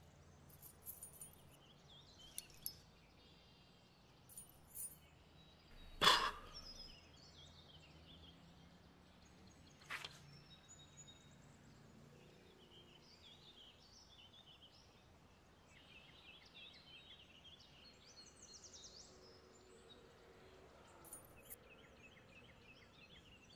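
Quiet room tone with a low hum and faint, scattered bird chirps. A sharp rustle or click about six seconds in is the loudest sound, with a fainter one about four seconds later.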